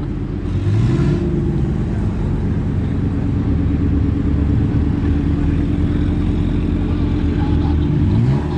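A four-wheel-drive vehicle's engine revving hard under throttle as it takes a run at a sand-dune climb. The pitch rises about a second in, holds at high revs, and climbs again near the end.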